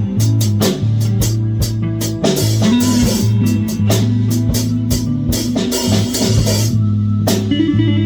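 Live band jamming: a drum kit, guitar and bass guitar playing together, the bass holding long low notes under the guitar. The drums drop out about seven seconds in, leaving guitar and bass ringing.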